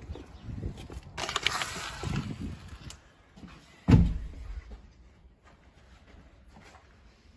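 A rush of noise for a couple of seconds, then a single heavy thump about four seconds in, followed by faint room tone.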